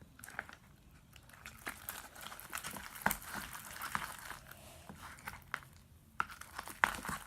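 Glue-and-Tide slime being worked in a bowl, irregular sticky squelches and small crackling pops, the sharpest near the end. The slime is still sticky, only partly activated.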